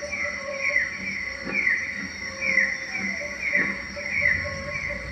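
Rainforest ambience: a steady drone, typical of insects, with short falling chirps repeating about two or three times a second.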